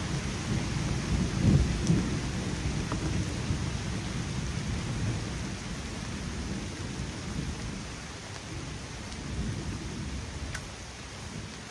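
Thunder rumbling over steady rain, loudest about a second and a half in, then slowly fading.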